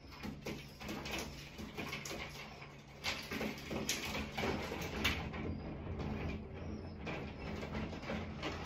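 Faint irregular scratching and rustling from an animal moving about inside a bathroom ceiling, with a couple of brief high chirps near the middle.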